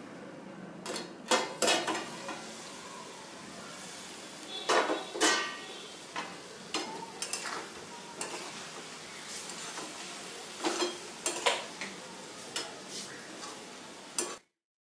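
Ridge gourd curry cooking in a pan: a steady sizzle, with a utensil stirring and scraping against the pan in irregular strokes and a few louder clanks. It cuts off suddenly near the end.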